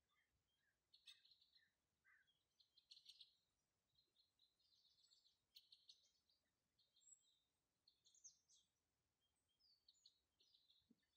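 Faint calls of a flock of white-winged crossbills: short, rapid chattering trills repeating on and off, with a few lower single chirps in the first two seconds.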